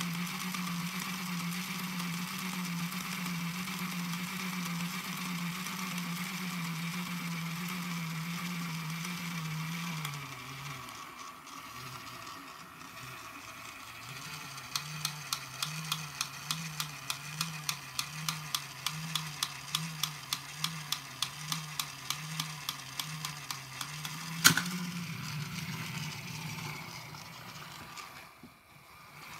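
Battery-powered transforming Dalmatian toy dog running, with its motor and gears working and a low tone warbling between two pitches. Midway a regular clicking starts at about two clicks a second, and a single sharp clack comes near the end.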